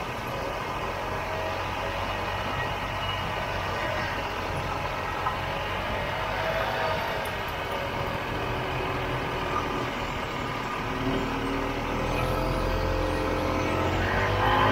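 1967 Ski-Doo Olympique snowmobile's single-cylinder two-stroke engine running under way, with track and wind noise. The engine note rises over the last few seconds as the sled speeds up.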